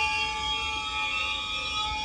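Freight train wheels squealing under applied air brakes as the train crawls along: several piercing high-pitched tones held at once, some slowly bending in pitch, over a low rumble of rolling wheels.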